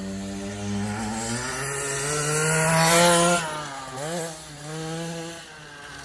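Small dirt bike engine revving hard as the rider accelerates over a bumpy dirt track, its pitch rising for about three seconds and then dropping sharply as the throttle closes. It revs up twice more, briefly, then drops away as the bike moves off.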